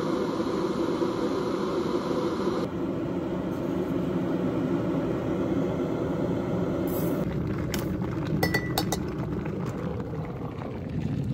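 A metal tea scoop clinking against a metal tea tin and a stainless steel tea infuser: a handful of short, sharp clinks about seven to nine seconds in, one ringing briefly. Under them is a steady low rushing noise from an electric kettle heating up.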